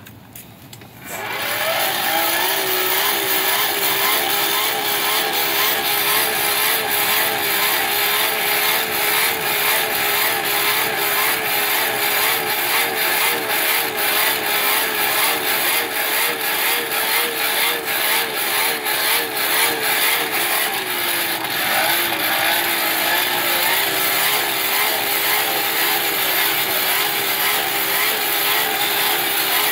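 An electric motor running continuously under varying load. Its whine wavers rapidly in pitch and dips briefly near the end, under a harsh rasping grind.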